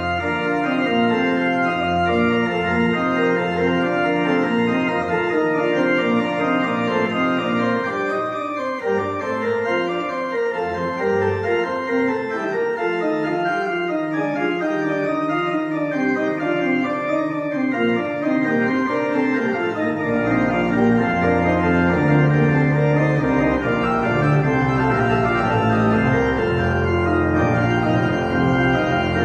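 Church organ played on its manuals, a busy piece of quick-moving notes over held chords; deep pedal bass notes come in about two-thirds of the way through.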